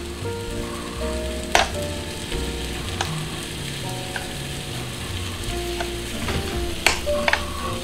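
Egg-and-cheese batter sizzling on a hot waffle-maker plate as it is spooned in, with a few sharp clicks of a metal spoon against the plate and bowl.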